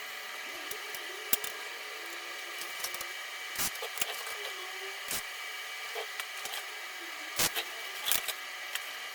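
A few scattered light clicks and knocks, with sharper ones near the end, over a steady hiss: workshop parts being handled.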